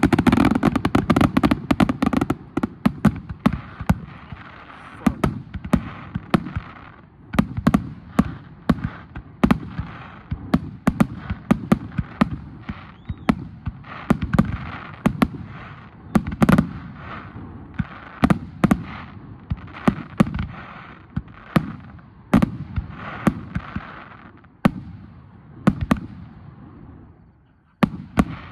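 Aerial firework shells bursting in a rapid, continuous barrage of bangs over a haze of crackle, densest in the first couple of seconds and thinning to a brief lull near the end.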